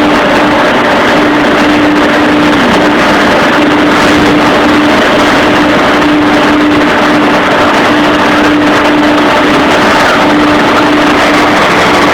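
CNC router running loud and steady, with a hum that breaks off and comes back every second or so.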